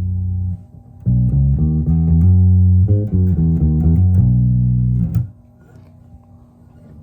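Ibanez BTB866SC six-string electric bass played through an Ampeg BA-115 combo amp: a held low note stops about half a second in, then a quick run of plucked notes for about four seconds, then the playing stops.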